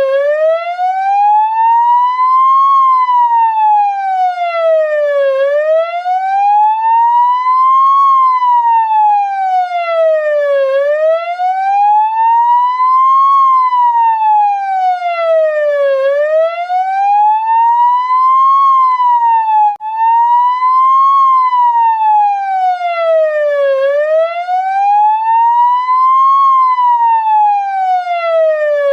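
Ambulance siren sounding a slow wail: one tone sweeping smoothly up and down, each rise and fall taking about five seconds, with a momentary break about two-thirds of the way through.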